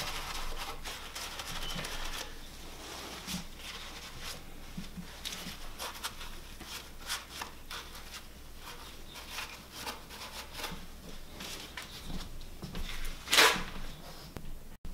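A gloved hand rubbing a cloth shop rag over the crankshaft journals to wipe off excess assembly lube, with soft rustling and scattered light clicks of metal. One louder, brief noise stands out near the end.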